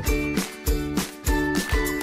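Background music with a steady beat of about two beats a second and short high notes over it.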